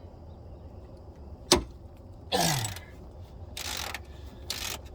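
Hand-tool work on a truck's oil-pan drain plug: one sharp metallic click about a second and a half in, then a few short scraping, hissing noises, over a steady low hum.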